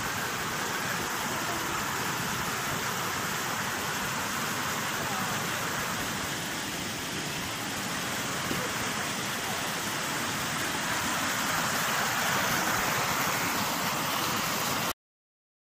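River water rushing steadily, an even hiss that cuts off suddenly near the end.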